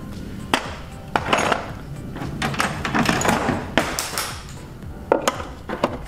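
Metal hand tools clanking and knocking as they are picked up and handled: a handful of sharp clanks with rustling handling noise in between.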